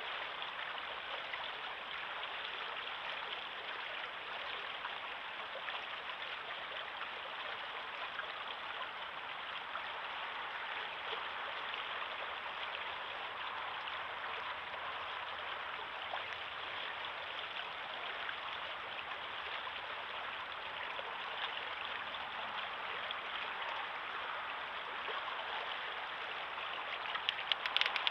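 River water flowing over a stony bed: a steady rushing noise, with a brief run of clicks near the end.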